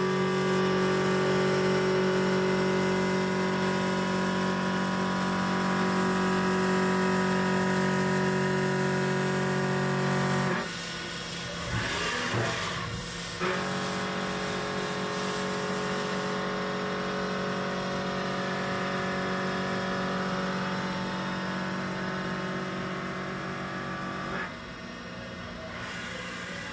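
Haas VF4 CNC vertical mill cutting metal dry, without coolant, with a 3/4-inch four-flute end mill: a steady ringing cutting tone for about ten seconds, a brief clattery break as the tool moves over, then a second steady pass of about eleven seconds. Near the end the cutting tone stops and only the machine's running noise is left.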